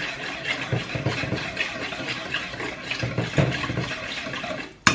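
Sauce bubbling and crackling in a pan on the stove, with a sharp clink near the end.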